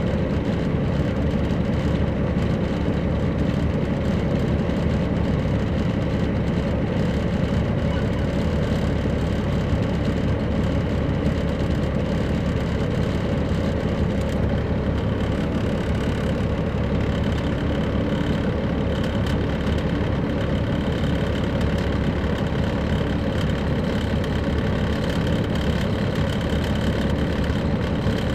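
Caterpillar C13 ACERT diesel engine of a 2007 MCI D4500CL coach bus running steadily, a low drone that holds its pitch throughout. A faint high whine comes in about halfway through.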